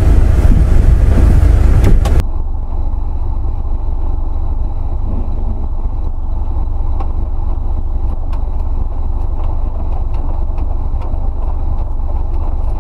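Subaru Forester cabin noise while driving off-road, a loud rumble that cuts off sharply about two seconds in. After that a steady low rumble with scattered light ticks of rain drops on the car.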